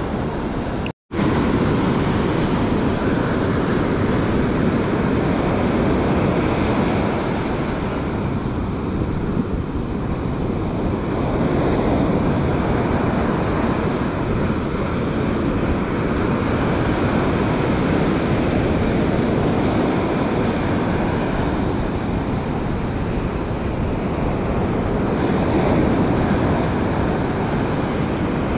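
Ocean surf breaking steadily on a sandy beach, with wind on the microphone. The sound drops out for a split second about a second in.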